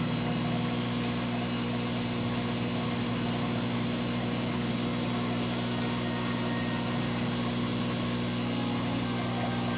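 Aquarium pump humming steadily, a low, unchanging drone.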